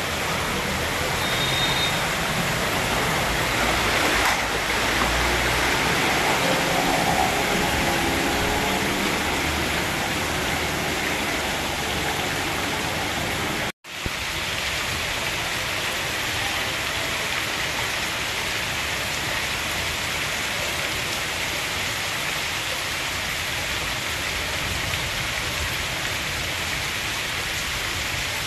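Heavy rain pouring onto a flooded street, a steady hiss of water. In the first half a car and a small motor vehicle wade through the floodwater, their engines a low rumble under the rain. The sound cuts out for an instant about halfway.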